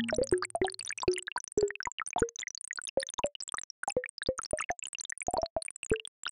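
Earthquake-data sonification: an irregular scatter of short synthesized plops, each one a single earthquake, with its pitch set by the quake's magnitude. A low held tone fades out about a second in.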